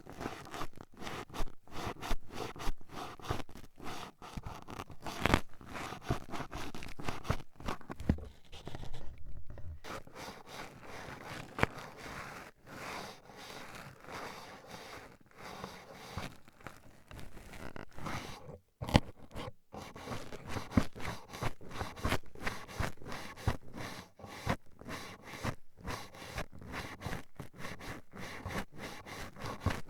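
Toothpicks jabbed and scraped rapidly against an ear close to the microphone: dense, crisp scratching and clicking, with a short lull about nine seconds in.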